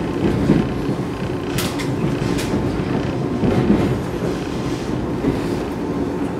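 Interior running noise of a JR West 113 series electric train pulling slowly into a station: a steady low rumble with a couple of sharp clicks from the wheels about a second and a half and two and a half seconds in.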